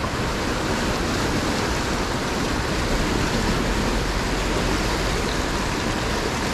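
Fast-flowing river rushing steadily, a strong current over a rocky bed.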